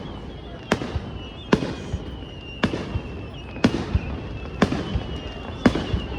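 Fireworks bursting, six sharp bangs about a second apart, each trailing off briefly, over a steady noisy background with a faint thin high tone.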